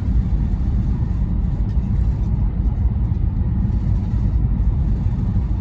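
Steady low rumble of a high-speed train running at speed, heard from inside the passenger car.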